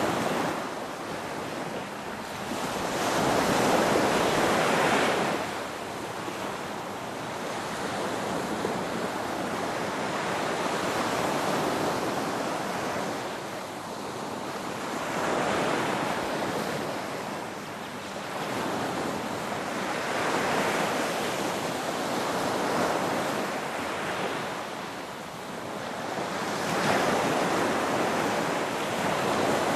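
Ocean surf, waves breaking and washing in one after another, the rush swelling and fading every few seconds.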